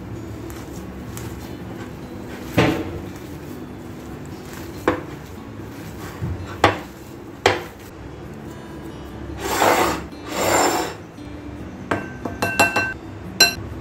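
Potato filling kneaded by hand in a glass bowl, with a few sharp knocks against the glass. Then a steel mesh sieve is shaken in two longer rustling passes over a glass bowl to sift wheat flour. Near the end comes a quick run of ringing clinks as the sieve's metal rim taps the glass.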